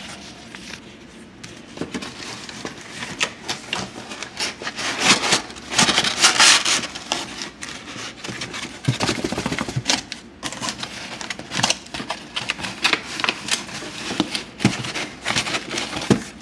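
Hands rummaging in a cardboard box during unpacking: cardboard and paper rustling and scraping, with scattered clicks and knocks of parts being handled. It is loudest around six seconds in.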